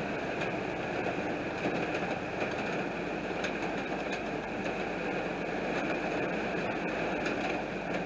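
Heavy rain beating steadily on a car's windshield and roof, heard from inside the car, with a low steady rumble underneath.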